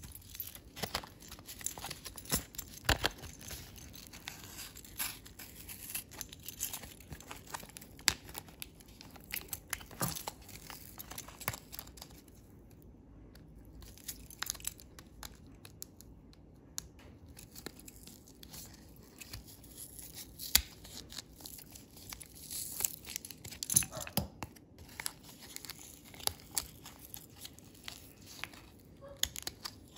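Paper-backed plastic blister card of CR2032 lithium coin cells being torn and peeled open by hand: irregular tearing and crinkling crackles, thinning out for a few seconds near the middle.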